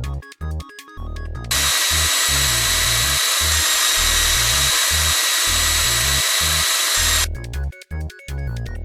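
Bouncy, game-style background music with a pulsing bass. From about a second and a half in until near the end, a loud steady hiss with high, steady whistling tones sits over the music, then cuts off suddenly.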